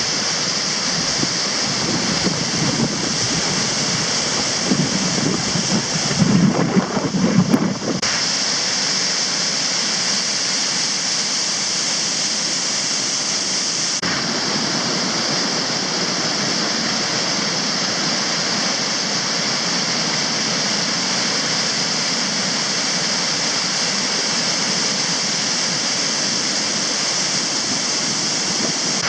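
Waterfall pouring into a gorge: a loud, steady rush of falling water, with uneven low rumbles during the first eight seconds or so.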